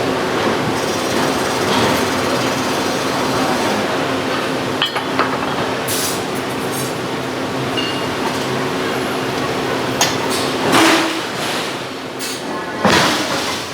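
Forge shop din: machinery hums steadily while a hydraulic forging hammer strikes steel several times, the loudest blows coming near the end.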